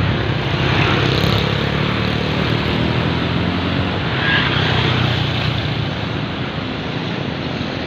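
Diesel engine of a medium-size tour bus climbing past, a steady low drone with tyre and road noise.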